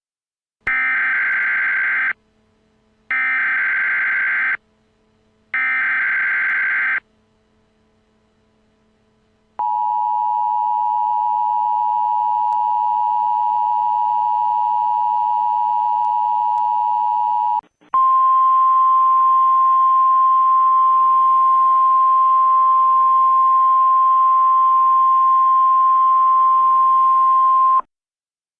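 Mock Emergency Alert System alert tones: three buzzy bursts of header data, each about a second and a half long, then the two-tone attention signal held for about eight seconds, then a single higher steady tone for about ten seconds that cuts off suddenly.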